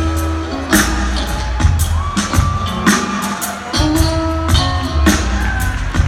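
Live band playing electric guitar, upright bass and drums, with steady drum hits under held guitar notes, heard from the audience in a large hall.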